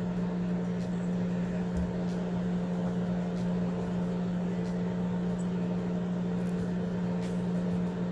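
A steady low electrical hum, like a running appliance or fan, with a few faint small ticks.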